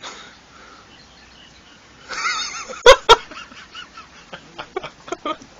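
A kitten gives a short wavering cry about two seconds in, followed at once by two sharp knocks, then a scatter of light taps and clicks.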